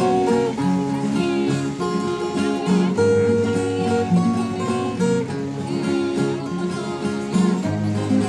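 Background music: a guitar-led instrumental track of plucked and strummed notes over held bass notes.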